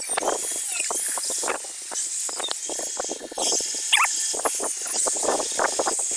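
Polystyrene foam insulation being scraped and broken out of a wall opening: a run of irregular scraping, crunching strokes, with a short squeak of foam about four seconds in, over a steady high hiss.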